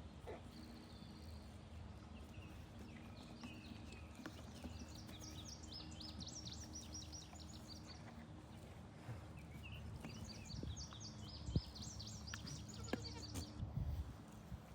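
Songbird singing in runs of quick high chirps over a faint steady low hum, with a few sharp knocks and thumps near the end from goat hooves on the playground.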